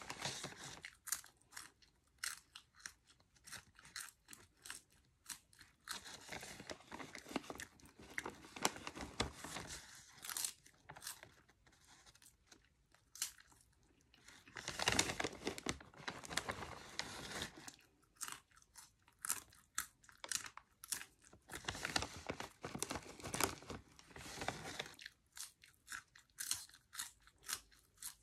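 Cheddar cheese popcorn being chewed close to the microphone: runs of crisp crunching with short pauses between mouthfuls.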